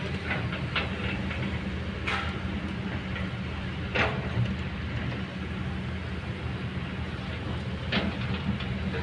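Kobelco hydraulic excavator's diesel engine running at a steady drone while it digs, with sharp clanks from the bucket working rocky ground, the loudest about two, four and eight seconds in.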